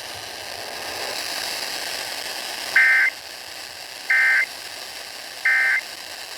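Emergency Alert System end-of-message signal over FM radio: three short bursts of SAME digital data tones, about a second and a half apart, after a couple of seconds of faint radio hiss. The three bursts mark the end of the alert.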